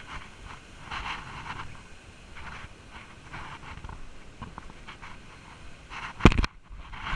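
Footsteps on a dirt trail and leafy brush rustling against clothing as a hiker pushes through overgrown undergrowth, picked up close on a body-worn camera. A single loud thump comes about six seconds in.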